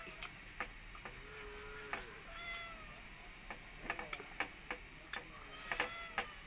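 Close-up eating sounds of a person eating rice and pork with the hand: many sharp wet clicks of chewing and lip-smacking. A cat meows several times, in short calls.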